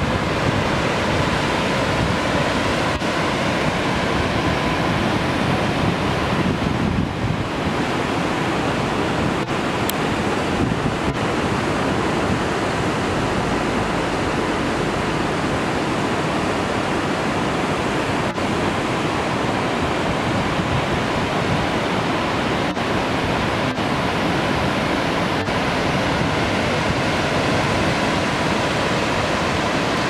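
Langfossen waterfall cascading down bare rock and pouring into the fjord: a loud, steady rush of white water.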